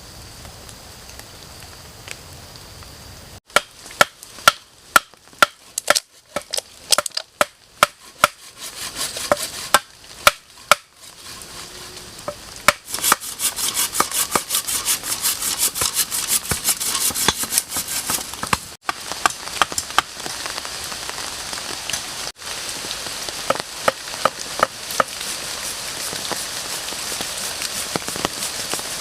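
Campfire crackling and sizzling: loud separate sharp pops for several seconds, then a denser, steadier sizzle with crackles, broken by abrupt cuts.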